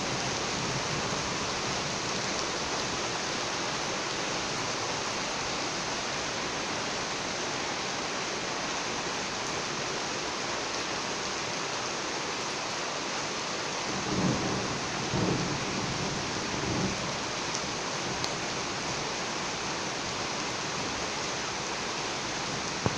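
Steady rain falling, a continuous hiss, with a low rumble of thunder rolling in a few surges about two-thirds of the way through.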